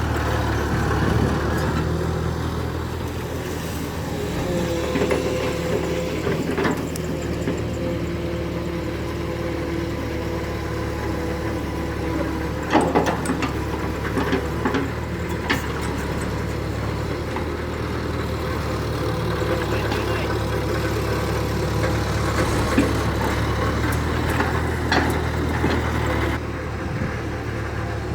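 Radio-controlled excavator and dump truck running with a steady, low engine-like idle drone, a fainter higher whine a few seconds in, and a few sharp knocks scattered through.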